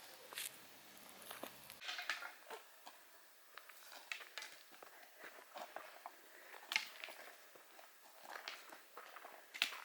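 Footsteps on a hiking trail: quiet, uneven steps and scuffs about one every second or so.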